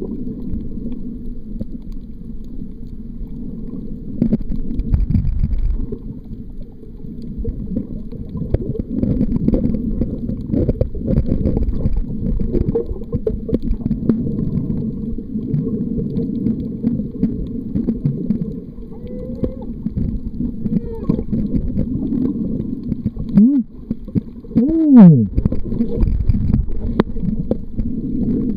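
Underwater sound picked up by a waterproof camera held below the surface while snorkeling: a steady muffled low rumble of moving water with scattered clicks. About 24 seconds in and again at the very end, loud warbling tones sweep up and down in pitch.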